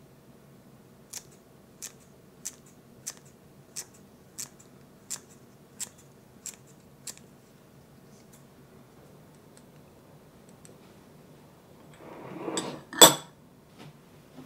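Kitchen scissors snipping green onions into a glass bowl: ten crisp cuts at an even pace, about one every two-thirds of a second. Near the end a short rising rustle ends in one sharp, louder clack.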